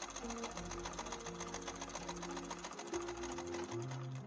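Sewing machine stitching a seam, a rapid, even clatter of needle strokes that stops right at the end. Background music with sustained notes plays under it.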